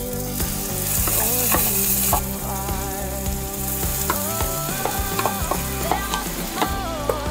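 Butter and garlic sizzling in a stainless frying pan as wet grated onion paste, then celery and green pepper paste, is tipped in, with a wooden spatula scraping and stirring. The sizzle swells soon after the start and again about halfway through, and dies down near the end.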